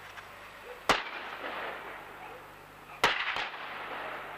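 Two gunshots about two seconds apart, each ringing on in a long echo off the surrounding hillsides; a fainter crack follows right after the second shot.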